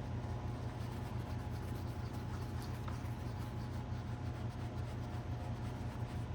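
Faint scraping and light ticks of plastic side-mirror parts being handled, over a steady low hum in the room.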